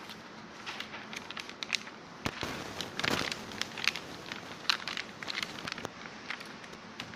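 Bubble wrap and clear plastic packaging crinkling and crackling as an LCD panel is handled and unwrapped: irregular sharp crackles, busiest about three seconds in.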